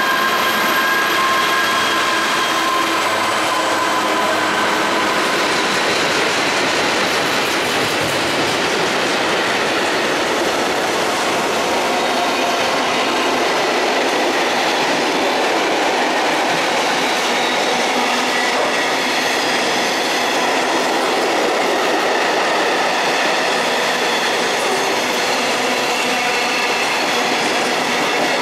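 Class 66 diesel-electric locomotive running slowly past, its two-stroke V12 diesel working. Behind it a long train of covered steel-coil wagons rolls by with the clatter of wheels over rail joints and some wheel squeal, a loud, steady sound throughout.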